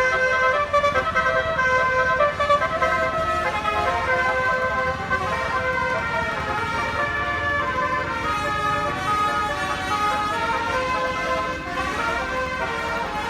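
Bus 'telolet basuri' musical air horn playing a tune: a continuous run of changing horn notes, with vehicle rumble underneath.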